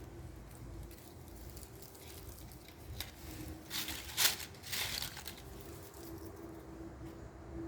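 Crisp crackling of fried potato chips, in a few short bursts about halfway through, over a low steady hum.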